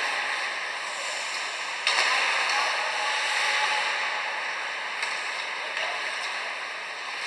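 Ice hockey game sound in an arena: a steady hiss of skates on the ice with a sharp crack about two seconds in and a fainter one about five seconds in, and faint shouts.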